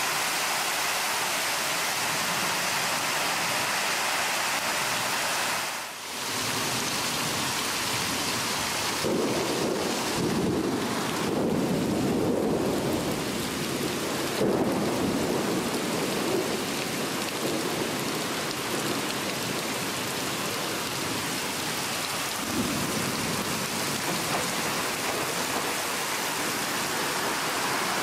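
Torrential thunderstorm downpour: heavy rain pouring down in a loud, steady hiss. Low rolling rumbles of thunder swell in about a third of the way through and again later on.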